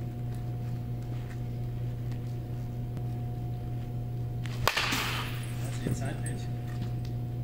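A bat cracks against a pitched baseball once, about four and a half seconds in, followed by a brief rush of noise and a smaller knock, over a steady low hum.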